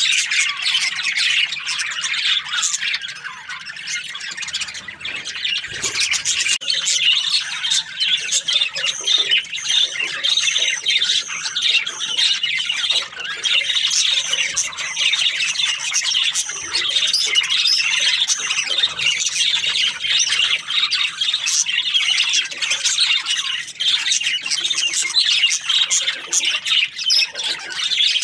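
Many budgerigars chattering and chirping together: a dense, unbroken mass of overlapping high warbles and squawks.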